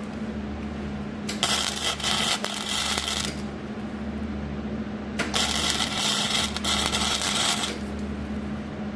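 Electric arc welder crackling in two bursts of about two seconds each, welding the broken steel cross member of a child's battery-powered ride-on car. A steady low hum runs underneath.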